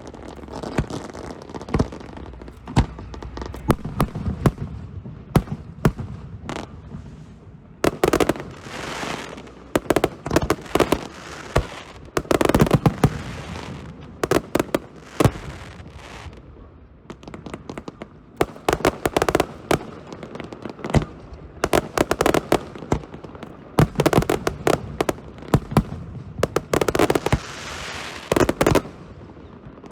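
Aerial fireworks going off in rapid volleys of sharp bangs and crackles, with a short lull about halfway through before the barrage picks up again.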